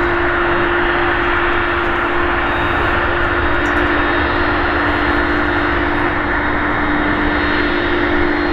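Airbus Beluga A300-600ST's twin turbofan jet engines running loud and steady, a broad rush of jet noise with a strong humming tone that dips slightly in pitch about halfway through.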